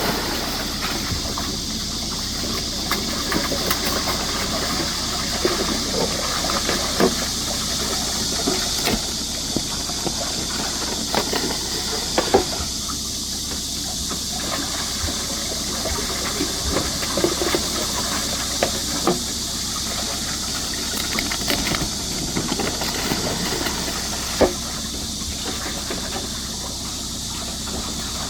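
Steady rushing, hissing water, with scattered small knocks and splashes, the sharpest about 12 seconds in and again near 24 seconds.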